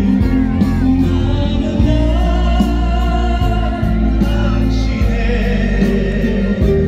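A song performed live: singing over an amplified band backing with heavy bass and a steady beat.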